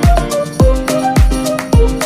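Background music with a steady beat: a deep kick drum a little under twice a second, with short melodic notes between the beats.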